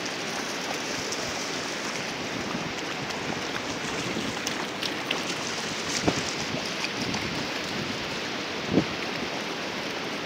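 Steady rushing hiss of moving water from a shallow beach stream and surf. Two brief thumps stand out, about six and about nine seconds in.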